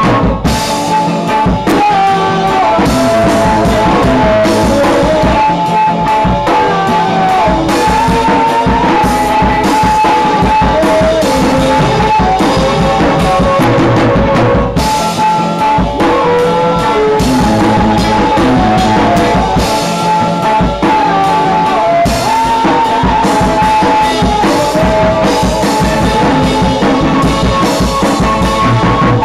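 A rock band playing live, loud: a drum kit with frequent cymbal and drum hits under electric guitars carrying sustained melodic lines.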